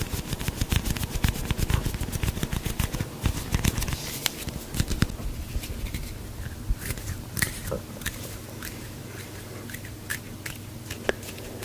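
A man's stomach growling, recorded close up: a dense run of crackling, bubbling gurgles for about the first half, thinning to scattered pops over a low steady hum.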